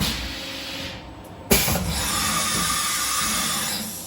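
SyilCNC X7 CNC mill's automatic tool change: a sharp clunk about a second and a half in, then a loud steady hiss of compressed air for about two and a half seconds as the spindle releases the tool and blows it clear.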